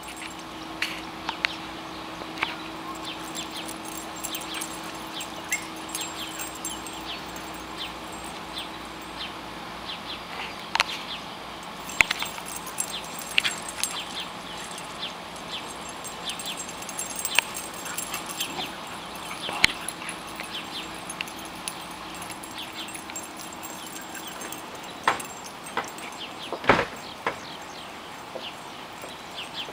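Outdoor background with scattered light clicks and taps, plus a faint steady hum that stops about a third of the way in and comes back for a while later. The loudest sound is a single sharp knock near the end.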